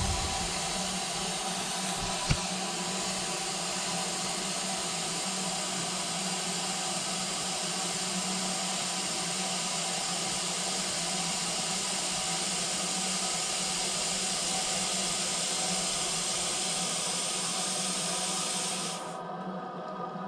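Air vent on a Taco 4900 series boiler air separator hissing steadily as it pushes steam or whatever else is in the freshly refilled piping out of the system, with a faint steady hum underneath. The hiss cuts off suddenly near the end.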